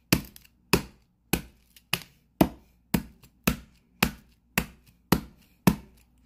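A metal bar striking the shattered glass screen of an iPhone 7 on a carpeted floor over and over, about a dozen sharp hits at a steady two per second.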